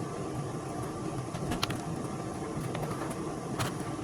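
A steady low background rumble, with a few light clicks and taps of handling scattered through it.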